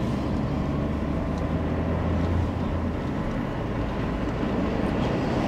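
Steady engine hum and tyre-on-road noise inside a moving car's cabin, the low hum a little stronger in the first half.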